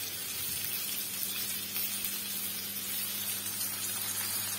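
Egg-and-flour-coated chicken strips frying in shallow oil in a pan, a steady sizzle.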